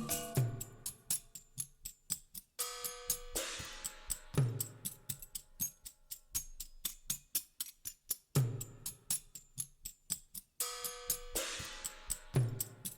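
Background music with percussion: a steady ticking hi-hat, a deep drum hit about every four seconds, and held chords coming in twice.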